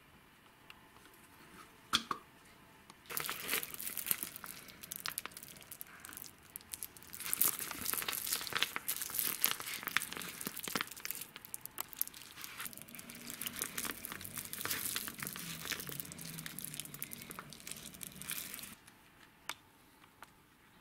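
Soft plastic grease sachet crinkling as it is squeezed and handled in gloved hands, in irregular crackling bursts from about three seconds in until near the end. A single sharp click comes about two seconds in.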